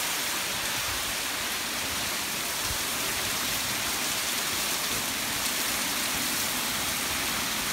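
Heavy storm rain pouring down in a steady, even hiss.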